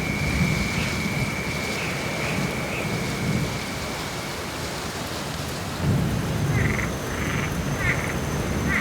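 Steady rain with low rolling thunder, strongest near the start and again around six seconds in. A steady high trill runs over it and stops about four seconds in, and a few seconds later frogs begin croaking in short repeated calls.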